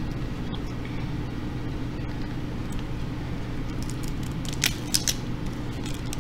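Boiled snow crab legs being pulled and cracked apart by hand near the microphone, with a few short, sharp shell cracks and snaps about two-thirds of the way through. A steady low hum runs underneath.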